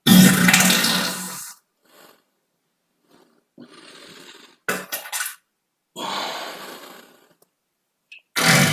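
A string of human farts. The first is long, loud and low-pitched, fading out over about a second and a half. A faint airy one follows around four seconds in, then a few short sharp pops, another long one that fades, and a new one starting near the end.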